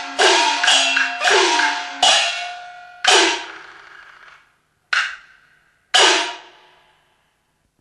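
Chinese opera percussion accompanying a glove-puppet play: about seven metallic struck hits of gong and cymbals, each ringing with a downward-bending tone and dying away. The strikes come quickly at first and then more slowly, with the last two a second apart.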